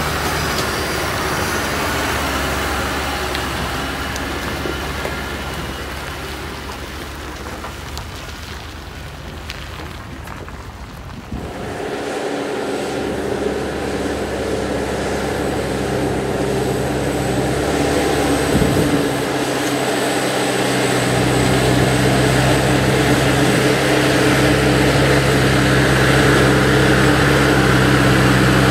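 John Deere tractor's diesel engine working steadily as it pulls a trailer through deep mud. About halfway through the sound cuts to a closer tractor, whose engine grows gradually louder as it approaches.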